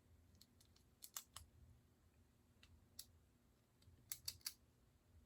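Small sharp clicks of plastic LEGO pieces being handled and pressed together: three quick clicks about a second in, a single one near three seconds, and another quick run of three near the end.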